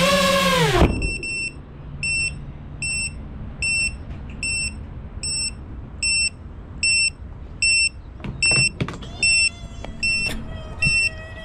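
FPV quadcopter motors whining, then cutting out abruptly with a thump under a second in as the drone comes to rest. Its buzzer then sounds short high beeps at an even pace, a little over one a second, with handling clicks and rustles near the end as it is picked up.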